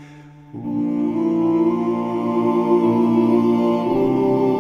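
Music of slow, long-held chords. A new chord comes in about half a second in and shifts to another near the end.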